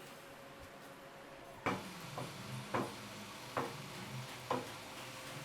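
A series of sharp knocks, roughly one a second, starting after a short pause, over a steady low machine hum.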